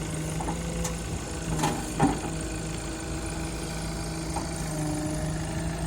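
Diesel engine of a Tata Hitachi Shinrai backhoe loader idling steadily, with a couple of short sharp knocks about two seconds in.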